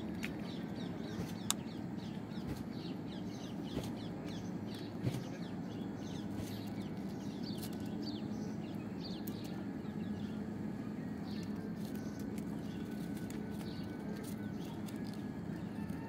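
Birds chirping in many short, high notes over a steady low hum, with a few sharp clicks in the first five seconds.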